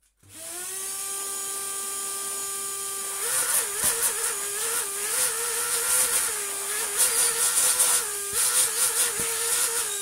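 Cordless electric screwdriver running in a steady whine. From about three seconds in, its pitch repeatedly steps up and back down, with rattling clicks.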